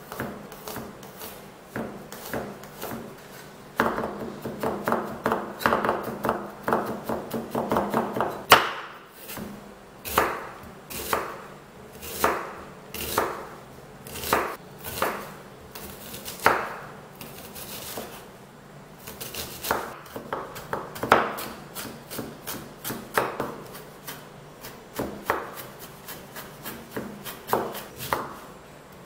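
Kitchen knife chopping on a wooden cutting board: first a run of rapid chops dicing garlic, then slower single cuts about one a second through red onion and cauliflower.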